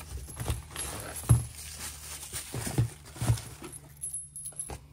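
Metal pillow-ball end links with heim-joint rod ends being handled and knocked against each other and the workbench: irregular clinks and knocks, the sharpest about a second in, over a steady low hum.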